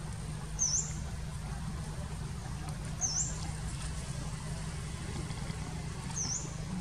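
A short, high, thin chirp that dips and then rises, repeated three times about every three seconds, over a steady low rumble.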